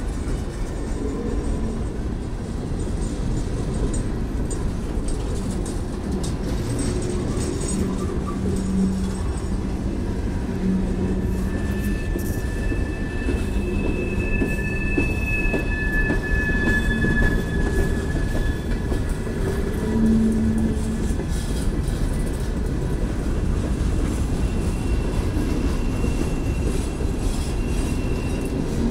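Coal train's freight cars rolling past close by: a steady rumble of steel wheels on rail. Thin, high wheel squeal comes in from about 12 to 17 seconds and again near the end.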